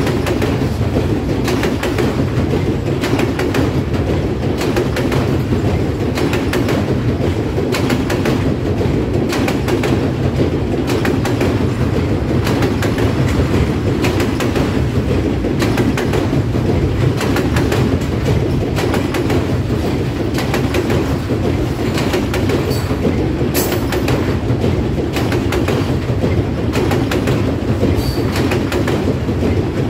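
Loaded ethanol tank cars of a freight train rolling steadily across a river bridge: a continuous heavy rumble of steel wheels on rail with frequent clicking.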